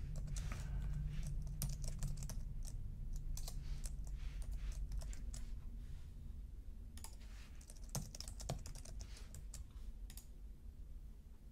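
Typing on a computer keyboard: quick, irregular key clicks, with a faint low steady hum underneath.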